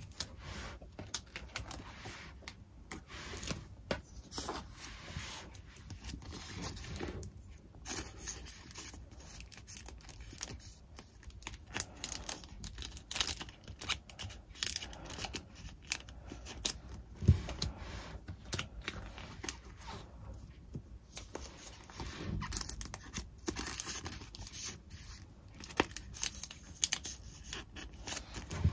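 Hands working with paper and packaging: rustling and tearing, with many small clicks and taps, and one louder thump about seventeen seconds in.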